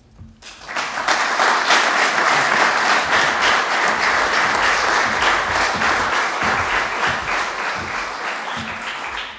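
Audience applauding. It swells in about half a second in, holds steadily and eases off slightly near the end.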